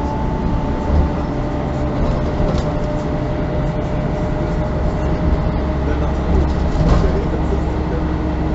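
Mercedes-Benz O405N1 city bus heard from the passenger saloon: a steady low rumble from the rear-mounted diesel engine and running gear, with a faint whining tone. There are a couple of brief knocks or rattles, about a second in and again near the end.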